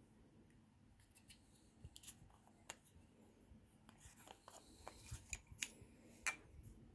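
Faint handling noise from a glass perfume bottle being turned over in the hand: scattered small clicks and rubs of fingers, cap and fabric strap, the loudest click near the end.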